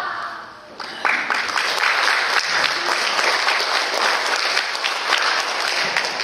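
Audience applauding, breaking out about a second in and continuing steadily as many quick claps.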